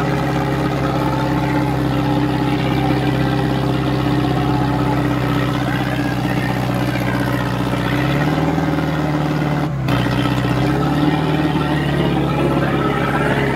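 Sonalika DI 750 III diesel tractor engine running steadily close up, under load in a tractor tug-of-war. About eight seconds in, its pitch rises a little as it revs up.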